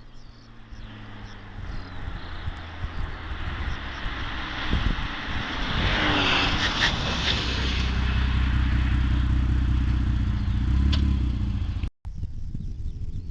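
1990 Jaguar XJ40's straight-six engine heard through a custom stainless steel exhaust, growing louder over the first several seconds and then running loud and steady with a deep rumble. It breaks off abruptly near the end.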